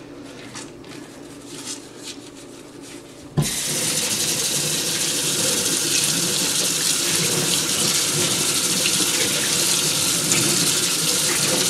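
A soapy makeup sponge is squeezed by hand with faint squishing. About three seconds in, a kitchen tap is turned on and water runs steadily over the sponge and hands into a stainless steel sink as the sponge is rinsed.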